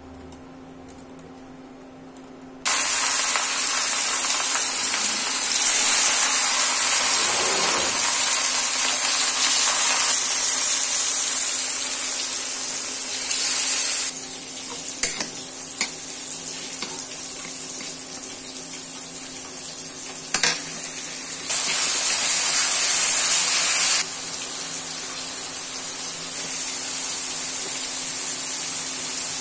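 Food sizzling loudly in hot oil in a pan, with marinated fish pieces frying. The hiss starts about three seconds in, steps louder and softer a few times, and is broken by a few sharp clinks of a metal spoon against the pan.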